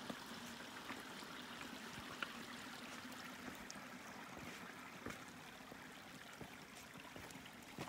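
Small mountain creek running over rocks, a steady trickle that fades a little toward the end, with a few faint footsteps on rock and gravel.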